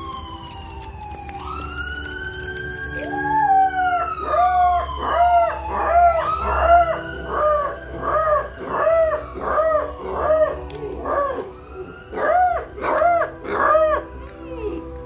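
Police sirens wailing in long pitch glides, joined about three seconds in by an 8-week-old Lycan Shepherd puppy howling along to them in a quick run of short rising-and-falling howls. The howls are the loudest sound and stop just before the end.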